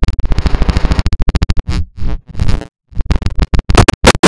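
Digitally glitched cartoon soundtrack, chopped into rapid stuttering fragments with bursts of distorted noise; it cuts out briefly twice near the middle.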